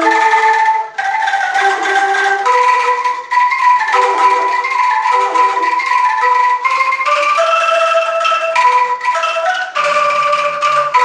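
Sundanese gamelan mallet instruments playing a melody: a steady stream of struck, ringing notes stepping up and down, a few each second.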